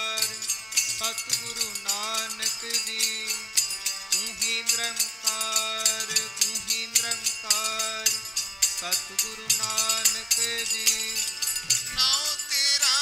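Sikh kirtan music: two harmoniums and three pairs of tabla drums playing a fast, dense beat, with voices carrying a melody that bends in pitch over it.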